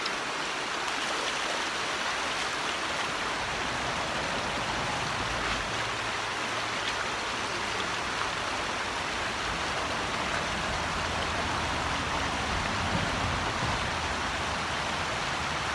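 Shallow creek running over rocks: a steady, even rush of water.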